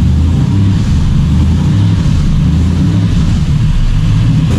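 The 5.3-litre LS V8 in a 1957 Chevy Bel Air idling through its new mufflers, a steady low exhaust note.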